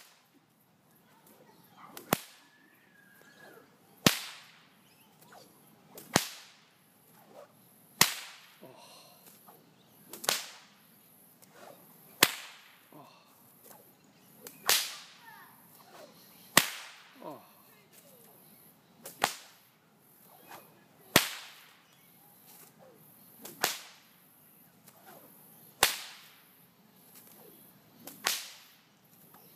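A whip cracked again and again, a sharp crack roughly every two seconds, about thirteen in all.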